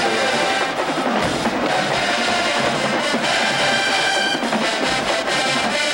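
Marching band playing in the stadium stands: the drum line with bass drums and snares under the band, and a held brass chord about three seconds in.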